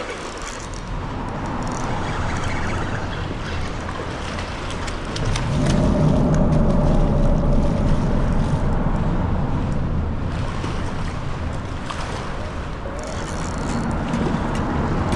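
A hooked steelhead thrashing and splashing at the water's surface during the fight, over steady river water and wind noise on the microphone. A low rumble swells about five seconds in and eases off a few seconds later.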